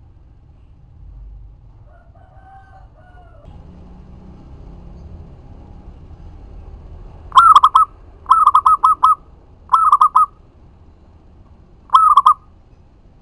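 Zebra dove (perkutut) cooing in four quick bursts of rolling notes, starting about seven seconds in, each burst well under a second long. A fainter, lower call comes about two seconds in.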